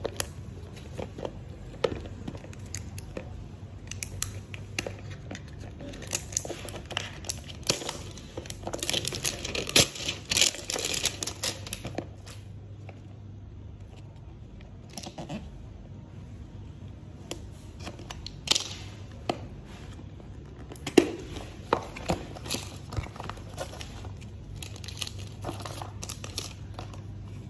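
Plastic packaging crinkling and tearing as a phone box is unwrapped, with scattered clicks and taps from handling the cardboard box. The crinkling is densest about eight to twelve seconds in.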